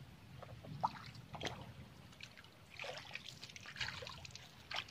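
Shallow creek water splashing in a few irregular bursts as someone wades through it.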